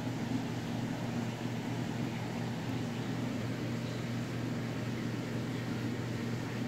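Steady low hum with a hiss over it from running aquarium equipment, unchanging throughout.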